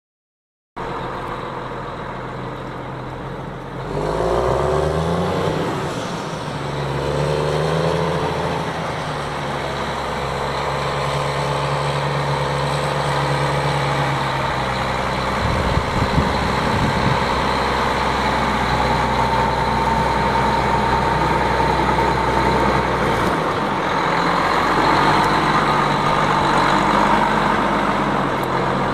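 Cummins QSM11 six-cylinder diesel of a Versatile 375 4WD tractor running, starting about a second in, revving up about four seconds in and again a few seconds later, then running steadily. A brief low buffeting near the middle.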